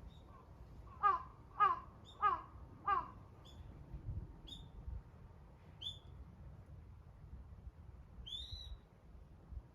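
A crow cawing four times in quick succession, followed by a small bird giving several short, high chirps spaced a second or so apart, the last one longer.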